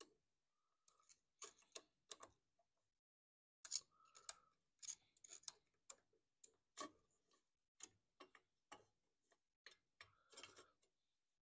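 Quiet, irregular small clicks and taps of metal on metal: a screwdriver and a small-engine carburetor knocking against the mounting studs and gasket as the carburetor is worked onto the engine.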